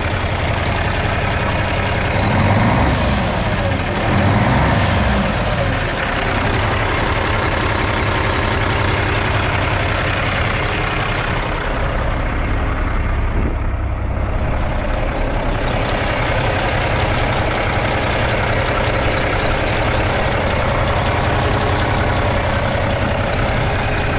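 Kenworth T800 dump truck's diesel engine idling steadily, revved briefly twice a few seconds in.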